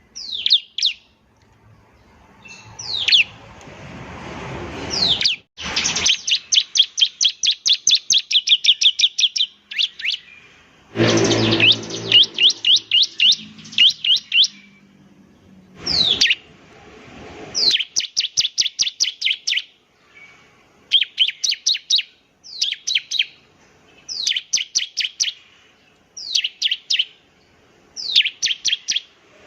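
Ciblek (prinia) song: rapid trains of sharp, high, downward-sweeping chips, each burst of about five to twenty notes repeated after short pauses. A brief low, noisy sound comes under the song about eleven seconds in.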